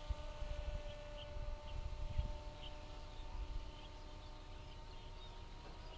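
Faint, steady whine of an RC pusher plane's motor flying at a distance, with small birds chirping and a low wind rumble on the microphone that is strongest in the first few seconds.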